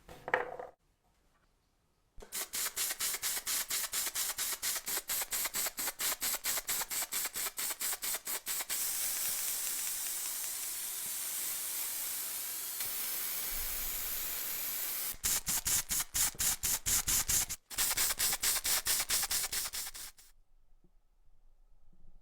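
Paint being sprayed onto a metal toy part: a hissing spray that first stutters in rapid pulses, about six a second, then runs steady for several seconds, then pulses again before stopping. A short knock comes right at the start.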